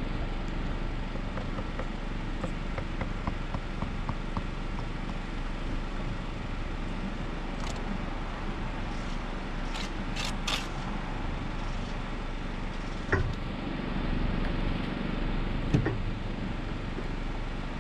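Truck engine and vacuum pump of a portable-toilet emptying tanker running steadily as a low drone, with two sharp knocks in the last few seconds.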